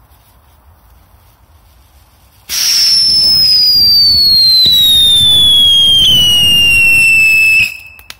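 A Geyser firework fountain firing: about two and a half seconds in it starts with a loud hiss and a shrill whistle that slides steadily down in pitch for about five seconds, then cuts off sharply.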